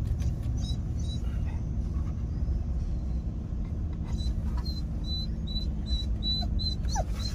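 Steady low rumble of a vehicle's engine and tyres, heard from inside the cab as it rolls slowly. In the second half there is a run of short, high chirps repeating about twice a second.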